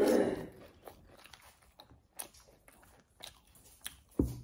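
A person eating potato wedges topped with melted cheese and bacon: a bite right at the start, then quiet chewing with a handful of short wet mouth clicks, the last one louder near the end.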